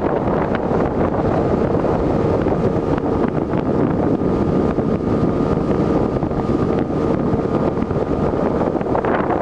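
Wind buffeting the microphone on a moving boat, over the steady drone of the boat's motor.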